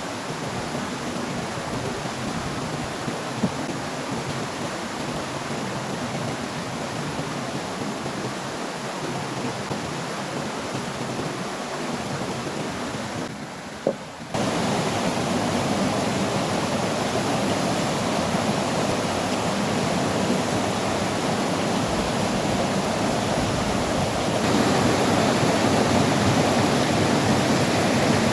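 Strong wind blowing, a steady rushing hiss that comes back louder after a brief dip about halfway through and rises again near the end.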